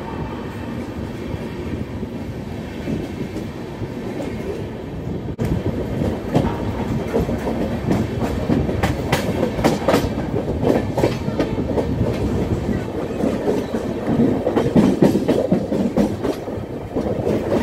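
Passenger coach wheels running on the rails, heard from an open doorway of the moving train: a steady rumble with sharp clickety-clack over rail joints and points, louder and much busier with clacks from about five seconds in.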